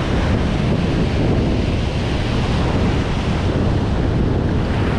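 Ocean surf breaking and washing over shoreline rocks, a steady rush with wind buffeting the microphone.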